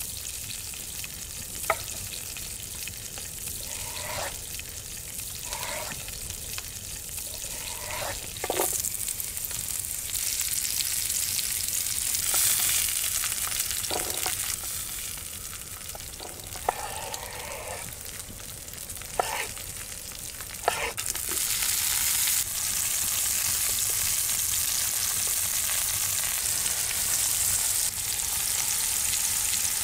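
Vegetables sizzling in a grill pan over an open wood fire, with a few sharp knocks of a knife cutting zucchini on a wooden board. The sizzle grows louder about two-thirds of the way in and stays loud as the pan is stirred and tossed.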